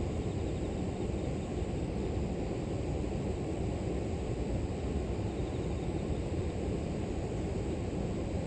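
River water flowing in a steady, low rush.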